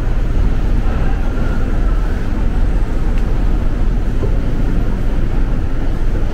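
Steady low rumble of subway background noise, with no distinct events.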